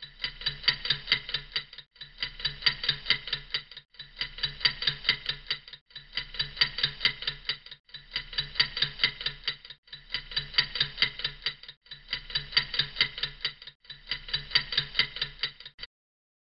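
A short clicking sound clip, rapid regular clicks over a steady low hum, looped eight times in blocks of about two seconds with brief gaps, then cut off near the end.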